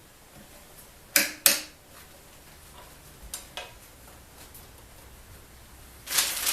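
Hard clicks and knocks from hands working a DeWalt sliding miter saw's arm and lock while trying to free it. There are two sharp knocks about a second in, a couple of fainter ticks, then a quick run of rattling clicks near the end.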